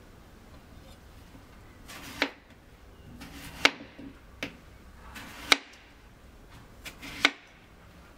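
Kitchen knife slicing through a peeled raw potato on a cutting board. Each cut is a short slicing sound ending in a sharp knock of the blade on the board: four loud knocks about one and a half to two seconds apart, with two lighter taps between them.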